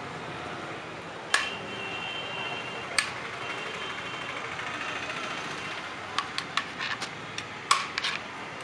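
Steel serving spoons knocking and scraping against a large aluminium cooking pot while biryani is ladled out: single sharp clinks about a second in and at three seconds, the first with a brief metallic ring, then a quick run of clinks near the end.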